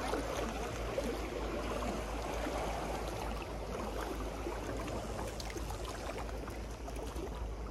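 Sea water washing against a sea embankment: a steady rushing, gurgling noise.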